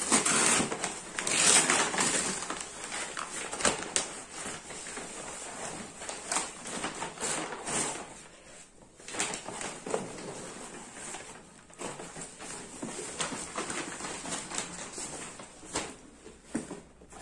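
Brown paper courier bag crinkling and tearing as it is pulled open and a box is drawn out of it: irregular rustles and crackles, loudest in the first few seconds, then sparser handling noises.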